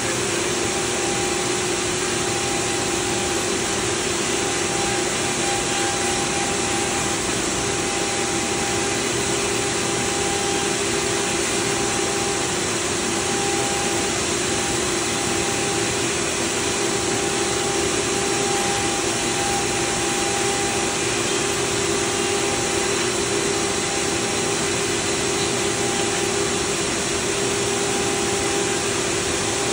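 Colex Sharpcut Digital 5x10 flatbed CNC cutter running as its tool head cuts into a board. The sound is a steady rushing vacuum noise with a constant hum that does not change.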